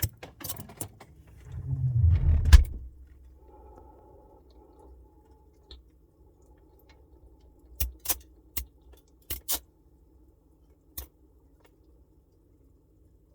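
Samsung Bespoke refrigerator noise: sharp clicks and a loud low rumbling knock about two seconds in, then a faint steady hum. A cluster of sharp clicks comes a little past the middle and a single one near the end.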